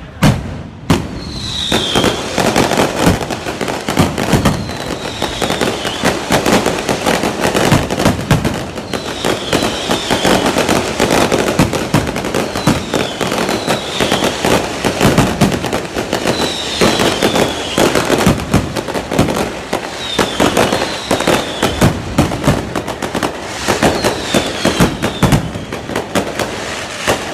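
Fireworks display: a dense, continuous barrage of bangs and crackling, with short falling whistles every couple of seconds. It starts with a bang and builds to full density about a second in.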